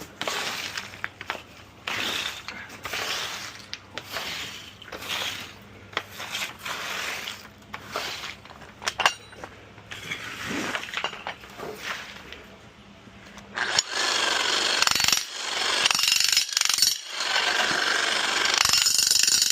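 Jackhammer chipping hardened mortar off concrete, first in short bursts, then in louder, longer runs with brief pauses from about two-thirds of the way in.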